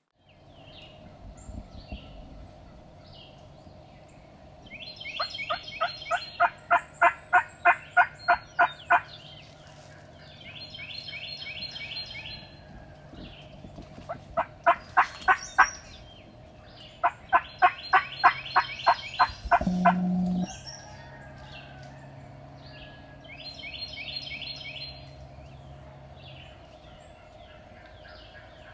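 Turkey yelping: three loud series of evenly spaced sharp notes, about four a second, the longest lasting some three seconds. Higher-pitched birdsong comes in short phrases between them, over a faint steady hum.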